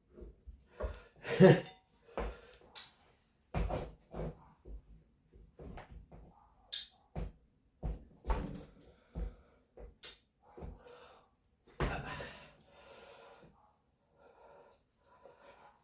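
Scattered knocks and clanks of tools and parts being handled during reassembly work. The loudest knock comes about a second and a half in, with lighter rattles between.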